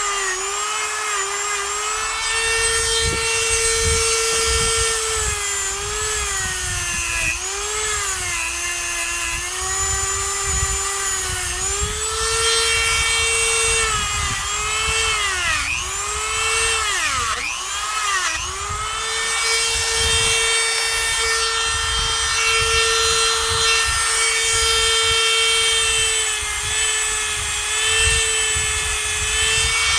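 High-speed rotary tool (Dremel type) running steadily with a high whine that repeatedly sags in pitch as it is pressed into the weld on the steel ball shaft, then climbs back when eased off.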